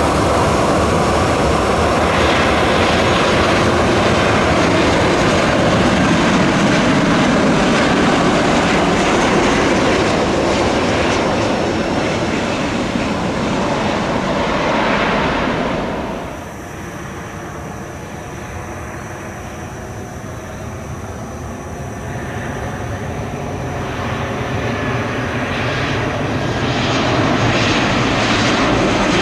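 Jet airliner engines during landings: a loud, steady rush of jet noise as a twin-jet comes in and rolls along the runway. It cuts off suddenly about halfway through to a quieter hum. Then the engine noise swells again as a Batik Air Boeing 737 comes in low over the runway on final approach.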